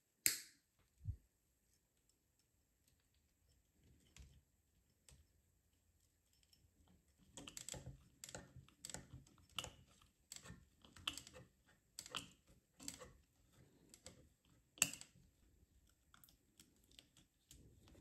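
Small metal clicks and rattles from the mainspring drum and draw band of a Smith Corona Silent typewriter being handled by hand. They are irregular, with a sharp click at the very start, sparse at first and coming thick and fast in the second half, with one louder click about two-thirds of the way in.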